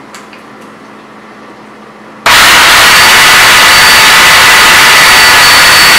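Black & Decker 20-volt cordless electric chainsaw switched on a little over two seconds in, then running very loud and steady, a rushing noise with a high whine in it, with the chain turning free in the air. Before it starts, a few faint clicks of the saw being handled.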